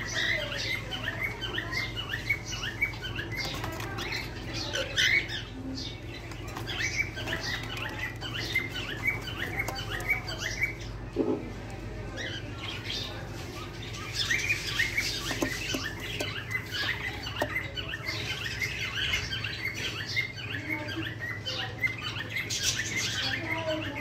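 Cockatiel chicks in a nest box giving their chirping calls in a rapid run, several short calls a second. The calls grow louder for a few seconds past the middle and again near the end.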